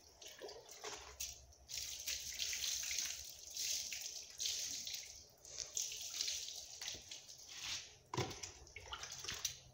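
Water poured from a jug over a wet dog, splashing onto its coat and the concrete floor in repeated gushes about once a second. A couple of sharp knocks come near the end.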